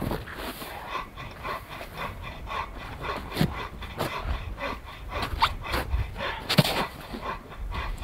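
Spruce boughs rustling and snow crunching as they are carried and laid down, with sharp crackles from a wood campfire. Underneath runs a soft rhythmic sound, about three pulses a second.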